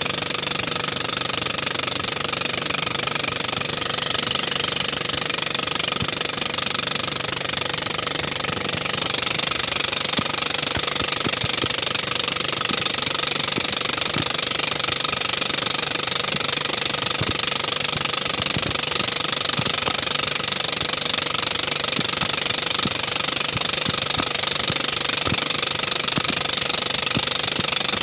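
Small boat engine running steadily at a constant pace.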